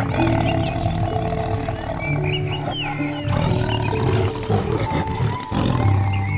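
A big cat growling and roaring over soft piano music, with birds chirping faintly in the background.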